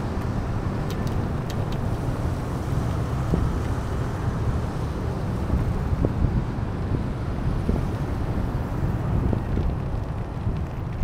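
Steady rush of road traffic mixed with wind buffeting the microphone of a moving bicycle, heaviest in the low rumble, with no distinct single event.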